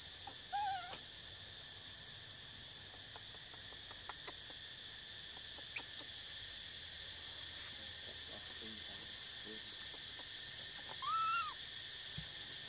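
Steady, high-pitched drone of an insect chorus, with two short wavering tonal calls, one about half a second in and a louder one near the end.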